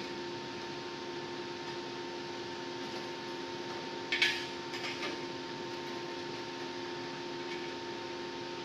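A steady mechanical hum with one sharp metallic clank about four seconds in, then a fainter knock a second later, as steel beams are handled during fitting.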